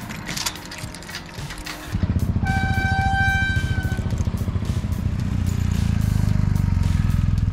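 Motorcycle engine idling, with metal clicks of a chain-link gate and its lever latch being worked in the first couple of seconds. About two seconds in, the engine sound gets suddenly louder and runs on with a rapid low pulsing. A steady high tone with overtones sounds for about two seconds near the middle.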